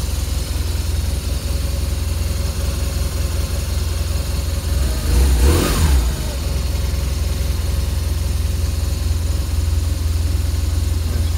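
2012 BMW R1200RT's boxer twin engine idling steadily, with one brief rise and fall in engine speed about five and a half seconds in.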